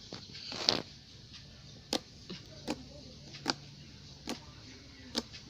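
Slime being squeezed and stretched by hand, giving sharp wet pops and clicks about once a second.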